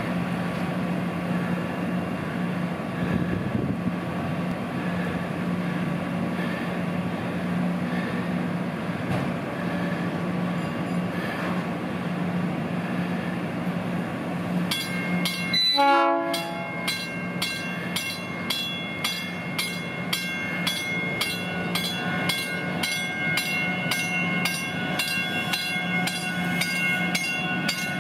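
South Shore Line electric commuter train approaching with a steady low hum. About halfway through it gives a short horn blast, and after that a bell rings steadily, about two strikes a second.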